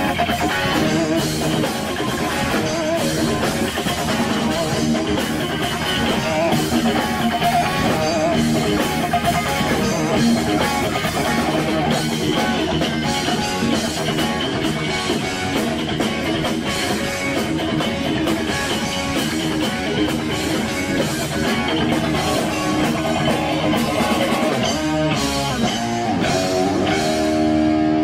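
Live rock band playing loud: electric guitar over a drum kit, with a short break in the playing near the end.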